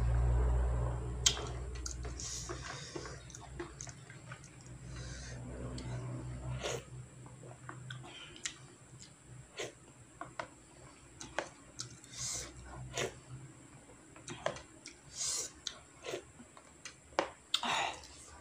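Plastic spoon scraping and tapping the bottom of a plastic tray in many short, irregular strokes as the last of the instant noodle soup is scooped up, mixed with close-up chewing and slurping.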